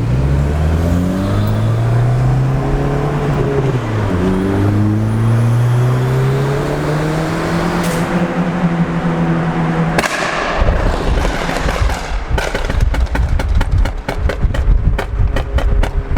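Turbocharged car accelerating hard, its engine note climbing, dropping at a gear change about four seconds in, and climbing again before holding steady. About ten seconds in the throttle closes and the exhaust crackles and pops in a rapid string of sharp cracks.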